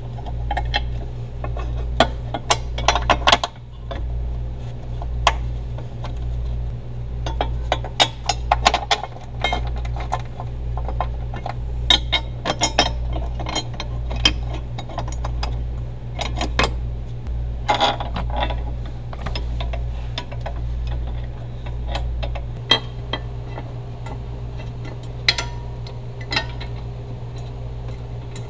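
Scattered metal clinks and clicks of tow-hitch bolts and washers being handled and started by hand, over a steady low hum.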